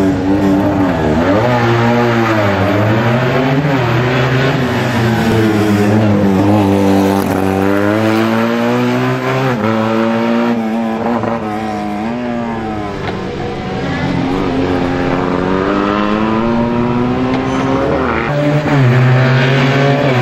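Small rear-engined Fiat 500-based race car driven flat out through a slalom, its engine pitch climbing hard and dropping again many times as it accelerates, lifts and changes gear.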